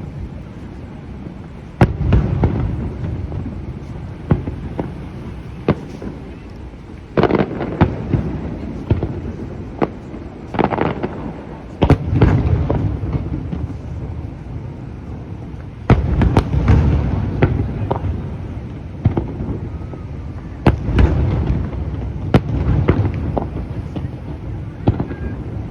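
Aerial fireworks shells bursting: sharp bangs coming several at a time in clusters every few seconds, each cluster trailed by a long low rumble.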